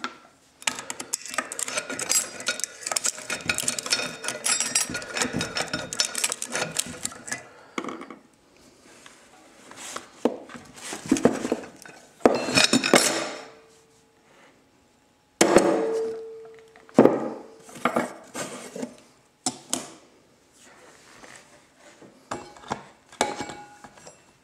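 Steel internals of a 4L60E automatic transmission being handled and taken apart: a dense run of metal-on-metal clinking and rattling for the first several seconds, then scattered clinks, scrapes and knocks, with a short metallic ring twice near the middle.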